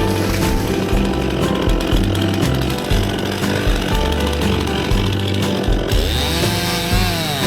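Stihl MS261 two-stroke chainsaw running and cutting; about six seconds in it revs up and falls back. Background music with a bass line plays along.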